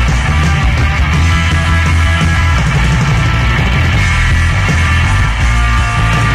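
Loud rock recording in an instrumental stretch with no singing: electric guitar and bass guitar playing together.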